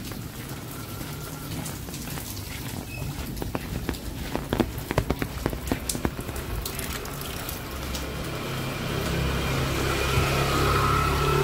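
Steady rain falling, with a run of sharp ticks of water about four to six seconds in. From about eight seconds a vehicle engine comes up under the rain and grows louder toward the end.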